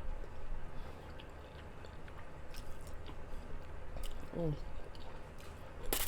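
A person chewing a mouthful of spicy Korean instant noodles close to the microphone, with wet, squishy mouth sounds and small clicks. A brief hummed "mm" comes about four seconds in, and a sharp smack or click sounds at the very end.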